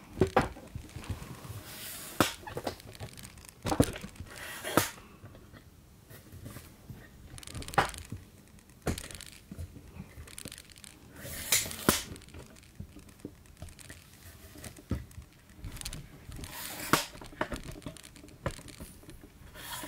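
Handling noise as a video camera is moved and set up: irregular knocks, clicks and rustles, about a dozen of them, spaced unevenly.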